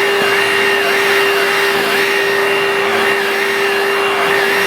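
Bissell Pet Hair Eraser cordless handheld vacuum running steadily with a high motor whine, an upper note wavering in pitch about twice a second.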